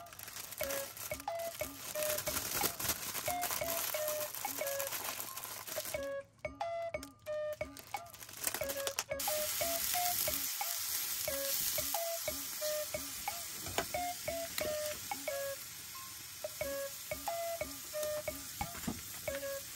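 Light background music with a repeating melody of short plucked notes. From about nine seconds in, mushrooms and sausage slices sizzle steadily in a small square frying pan as they are stirred with chopsticks.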